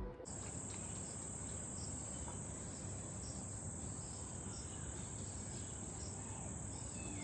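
Insects trilling in one steady, unbroken high-pitched tone over faint background hiss.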